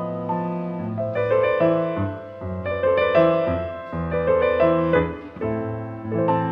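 Piano playing a classical passage of sustained chords and melody notes that change several times a second.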